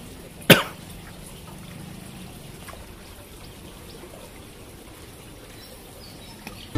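Water trickling steadily, with one sharp knock about half a second in.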